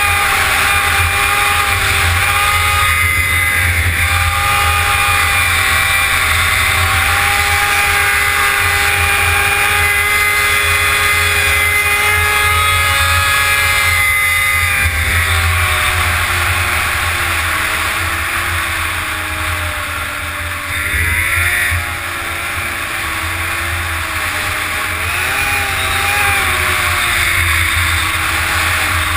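Yamaha SXR 700 snowmobile's three-cylinder two-stroke engine running at a steady pitch while cruising, then dropping and rising in pitch in the second half as the throttle is eased and opened again.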